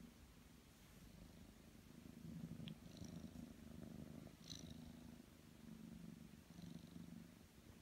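Ragdoll kitten purring faintly while its paw is held, the purr swelling and easing with each breath, with a few faint clicks.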